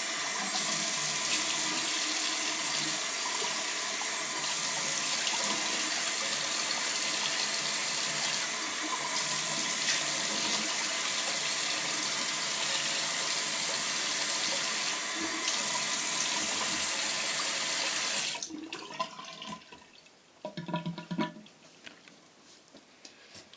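Tap water running steadily into a bathroom sink while a face is rinsed after a shave. The tap shuts off suddenly near the end, leaving a few faint splashes and drips.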